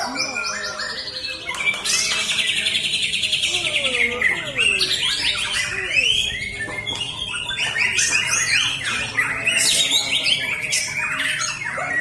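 White-rumped shama singing: a fast trill of rapidly repeated notes, followed by a run of varied whistled phrases and quick sweeping notes.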